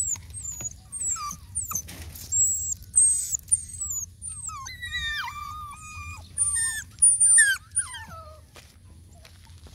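Young puppy whining: a string of short, high, falling whimpers and squeals, busiest in the middle and dying away near the end.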